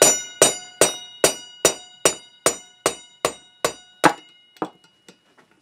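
Hammer tapping steadily on a drift to drive an old front wheel bearing out of a BMW motorcycle wheel hub. It goes about two and a half taps a second, each with a short metallic ring, and the taps grow softer as the bearing works loose. The tapping stops about four seconds in, with a few light knocks after.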